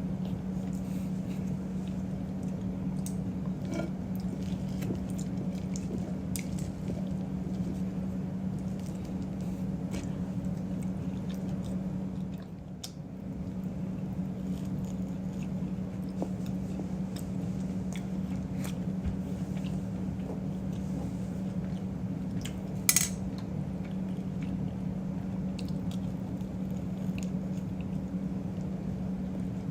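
Someone eating, with cutlery clinking on a plate and chewing, over a steady low hum. There is one sharper clink about 23 seconds in.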